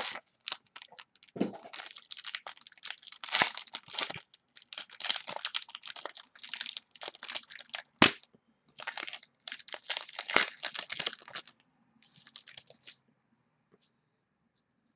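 Crinkly plastic trading-card packaging being handled: runs of short crackles and crinkles, with one sharp crack about eight seconds in, fading to a few faint crackles and then stopping near the end.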